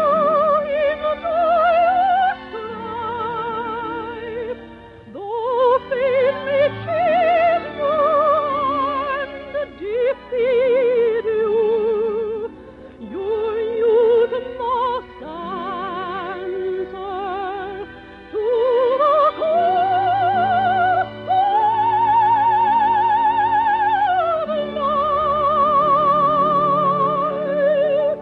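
A soprano voice singing a slow operetta melody in long held notes with wide vibrato, over instrumental accompaniment. The sound is thin and lacks highs, as on an old broadcast recording.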